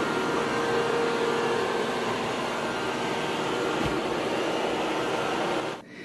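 Multilaser HO041 robot vacuum running in mopping mode with a damp microfibre pad attached: a steady, even noise with a faint hum, which cuts off suddenly near the end.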